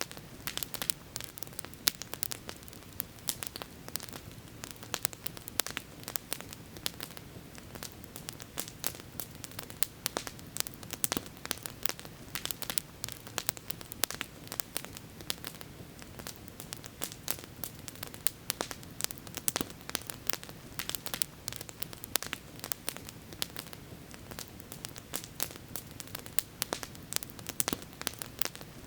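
Campfire crackling: dense, irregular pops and snaps of burning wood over a steady hiss.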